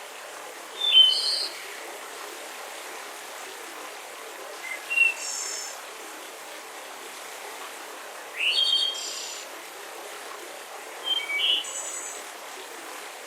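Forest songbird singing four short high phrases, about one every three to four seconds, over the steady hiss of a soft breeze.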